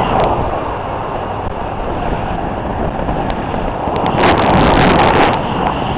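Loud rushing wind buffeting the microphone on a moving amusement ride, swelling to a louder gust about four seconds in.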